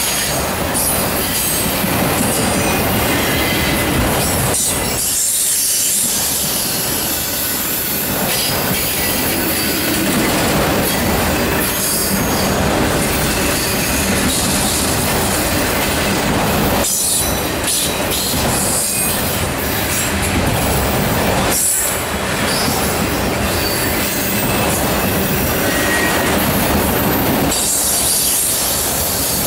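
Freight train of enclosed autorack cars rolling past close by: steady, loud noise of steel wheels running on the rails, with much of the sound high-pitched.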